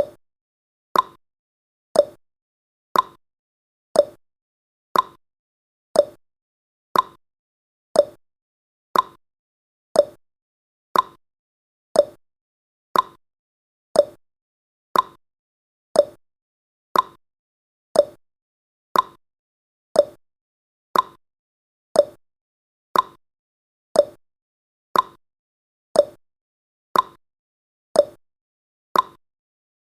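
Countdown timer's ticking sound effect: a short, sharp clock-like tick once every second, evenly spaced, with silence between ticks.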